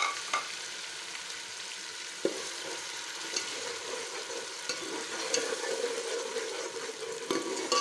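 Ginger-garlic paste and ground onion sizzling in hot oil in a steel pot, stirred with a metal spoon that scrapes and clicks against the pot now and then.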